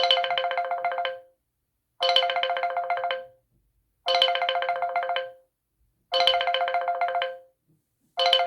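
LG V30 smartphone playing a telephone-style ringtone: a fast trilling ring on two steady pitches, about a second and a quarter long, repeated roughly every two seconds with short silences between, four full rings and the start of a fifth.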